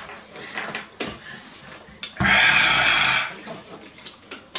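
A person drinking from a plastic sports-drink bottle. A little past two seconds in, a loud rush of noise lasts about a second and stops abruptly.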